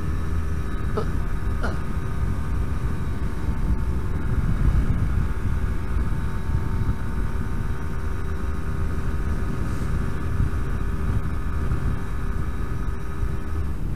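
Yamaha RD125LC YPVS's single-cylinder two-stroke engine running at steady revs on the move, its note fading near the end, under a heavy rumble of wind on the microphone. Two short clicks about a second in.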